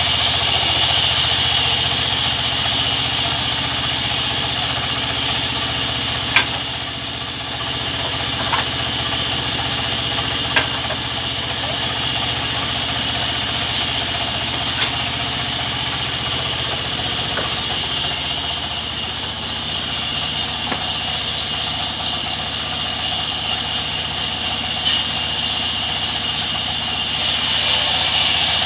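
Sawmill machinery running steadily: an engine drone with a constant high hiss above it, broken by a few short sharp knocks.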